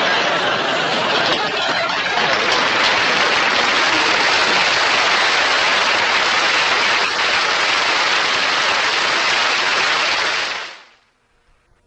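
Studio audience applauding, a loud dense clapping that cuts off abruptly near the end.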